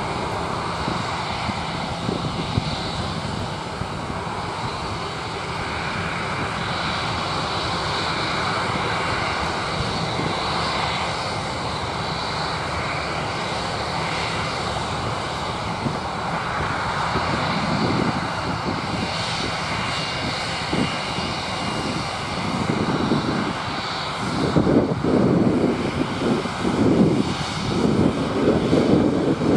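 Jet engines of Airbus A320-family airliners taxiing at low thrust: a steady turbofan whine over a broad rumble. The rumble grows louder and more uneven in the last few seconds as the lead jet swings past close by.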